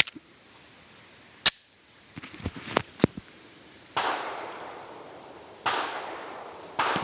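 Gunshots with long echoing tails: three shots, about 4, 5.7 and 7 seconds in. Before them come a single sharp crack and a few small metallic clicks.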